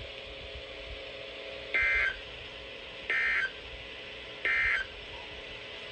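Three short bursts of Emergency Alert System SAME digital data tones, about a second and a half apart, over a faint steady hum. They are the end-of-message code that closes the severe thunderstorm warning.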